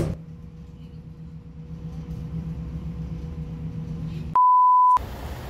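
Bus engine running as a low, steady hum from inside the moving bus. About four seconds in, a loud steady electronic beep lasting about half a second cuts in while all other sound drops out.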